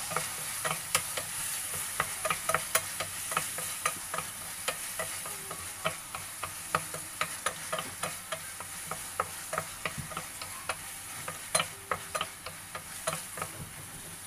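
Chopped tomatoes sizzling in oil in a metal wok while a wooden spatula stirs them: a steady sizzle under quick, irregular clicks and scrapes of the spatula against the pan, two or three a second.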